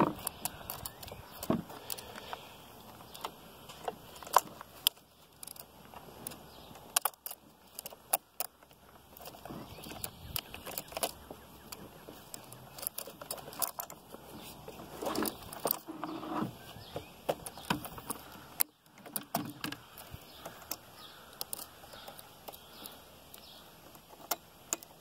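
Chainsaw chain links clinking and jingling in gloved hands as the chain is worked into the bar groove and around the drive sprocket, with the bar shifted on its mounting studs to line up with the tensioning post. Irregular small metal clicks throughout.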